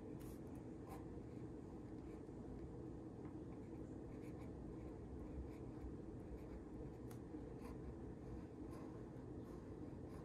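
Marker pen scratching over thin cardstock in many short, faint strokes as a drawing is inked, over a low room hum.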